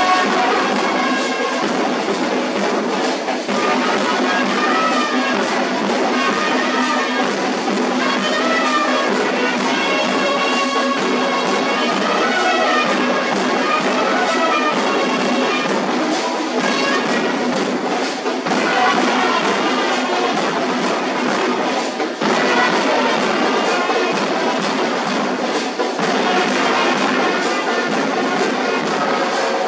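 Brass band playing a tune, trumpets and trombones carrying the melody over a drum.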